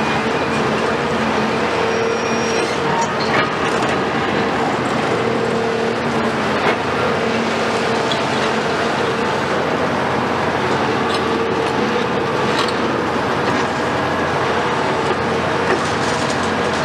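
Cat 374 long-front demolition excavator with its Cat C15 diesel engine and hydraulics running steadily under load: a loud constant drone with a steady tone in it. A few sharp knocks and crunches of concrete breaking off are heard now and then.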